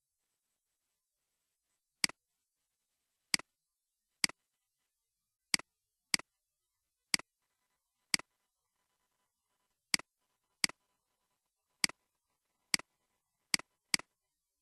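Mouse-click sounds: about thirteen single, sharp clicks at uneven intervals, some close together near the end, over an otherwise silent background.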